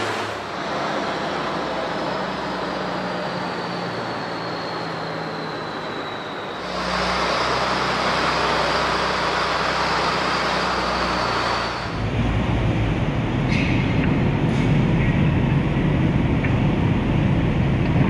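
Fendt 824 tractor's diesel engine running as it pulls a loaded Krampe three-axle tipping trailer, with a steady high whine over the engine note. The last six seconds are louder, with a heavy low rumble.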